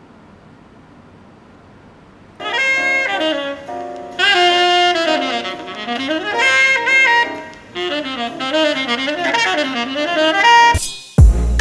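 A vinyl record playing on a Victrola record player through its built-in speakers: a faint groove hiss, then jazz saxophone comes in about two seconds in. Near the end it cuts to electronic music with a heavy bass beat.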